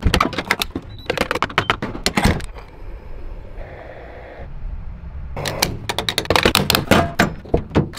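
Rapid clicks and clunks of a Toyota Tacoma's door latch, fuel filler and gas-pump nozzle being handled while refuelling, in two quick clusters with about a second of steady hiss between them.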